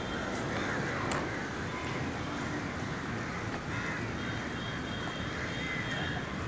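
Steady outdoor city background noise: a low, even hum of distant traffic.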